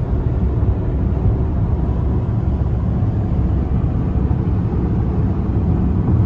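Steady road and wind noise inside a car cruising at highway speed: a loud, even rumble weighted toward the low end.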